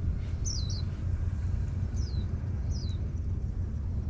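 Wind buffeting the microphone as a steady low rumble, with a bird calling several short, high chirps that slide downward in pitch.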